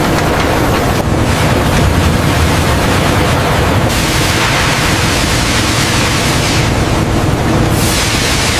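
Water rushing and draining through a paper machine's wire mesh, a steady loud hiss over a low rumble. The hiss turns brighter about four seconds in and again briefly near the end.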